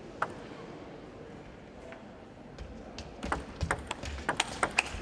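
Table tennis ball clicking off paddles and the table in a fast rally: a quick run of about a dozen sharp clicks over the last two and a half seconds, after a couple of lone taps earlier.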